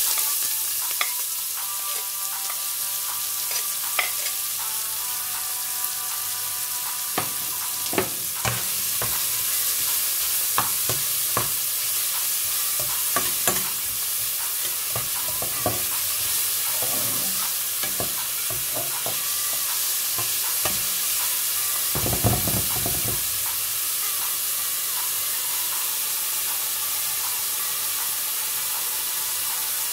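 Chopped red onion sizzling steadily in hot olive oil in a pot as it is sautéed, with a utensil clicking and scraping against the pot as it is stirred. A dull bump comes a little after two-thirds through.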